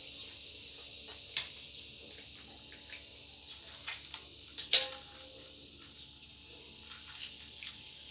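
A steady, high-pitched chirring of crickets or similar insects. A few sharp taps sound over it, the loudest about a second and a half in and a pair just before five seconds in.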